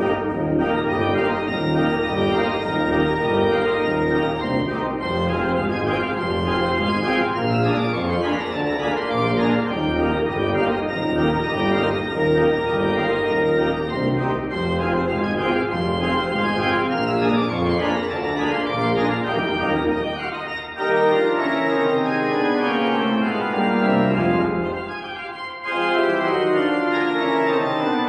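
Concert pipe organ playing loud, full sustained chords over a pedal bass, with quick sweeping scale runs about eight and eighteen seconds in. The bass thins out about twenty seconds in, and the sound briefly drops back near the end before the full chords return.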